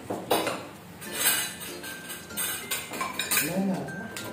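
Metal forks and spoons clinking and scraping against ceramic plates as people eat, in irregular sharp clinks. A brief voice is heard about three and a half seconds in.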